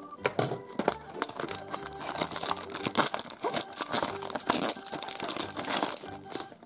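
Clear plastic shrink-wrap crinkling and tearing as it is peeled by hand off a small cardboard toy box, in dense irregular crackles.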